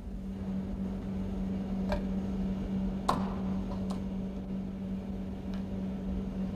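Glass microsyringe being pushed into the metal injection port of a chromatograph: four light clicks, about a second apart, over the instrument's steady low hum.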